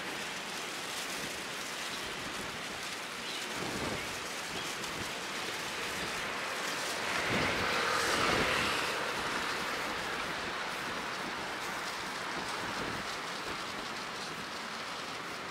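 Steady hiss of city street noise, with a motor vehicle passing that grows louder to a peak about halfway through and then fades.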